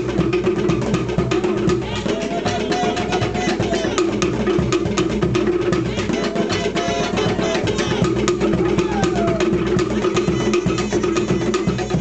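Polynesian drum ensemble playing a fast, driving rhythm on wooden slit drums and drums, the strikes dense and unbroken throughout.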